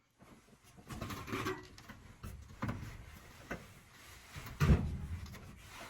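Irregular clunks and rubbing from hands working inside a furnace cabinet, with one louder knock late on.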